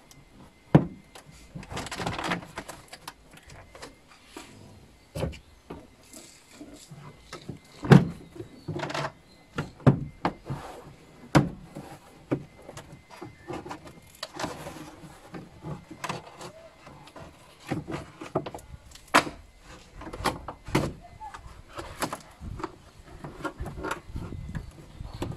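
Toyota Prius carpeted side trim panel being worked loose from its plastic clips by hand: irregular clicks, knocks and scraping of plastic trim, the sharpest knock about eight seconds in.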